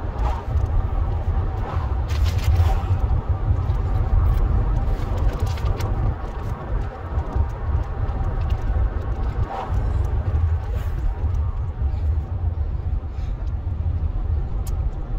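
Steady low rumble of a car's engine and tyres heard from inside the cabin while the car creeps along in slow traffic.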